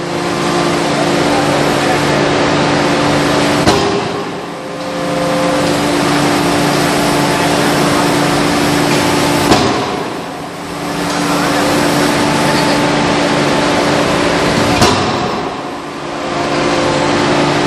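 5-ton closed-die forging hammer striking a red-hot workpiece three times, one sharp blow every five to six seconds. Between the blows a loud, steady machine drone with a hum runs on, dipping briefly after each blow.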